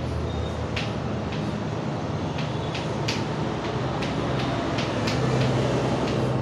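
Steady background hum and noise with a dozen or so short, sharp ticks scattered through it.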